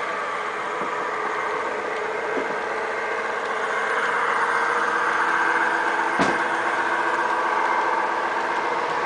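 MTH RailKing garden-scale model train running on the track: a steady mechanical hum that swells slightly in the middle, with one sharp click about six seconds in.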